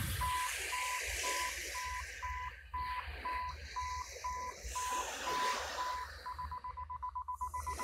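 Camera self-timer beeping its countdown: one high tone at about two beeps a second, switching to rapid beeps near the end as the timer is about to release the shutter.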